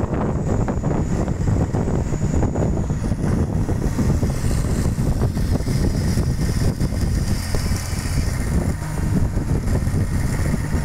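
Komatsu hydraulic excavator's diesel engine running steadily under load as it pushes a boat's hull with its bucket.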